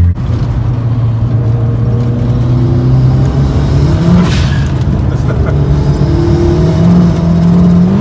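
Turbocharged VAZ 2108's four-cylinder engine heard from inside the cabin, accelerating through the gears: the revs drop at a shift right at the start, climb for about four seconds, drop again at a second upshift with a brief hiss, then climb again.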